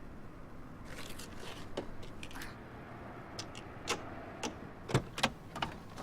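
Irregular clicks, scrapes and knocks over a low steady rumble, the sharpest few knocks coming about four to five and a half seconds in.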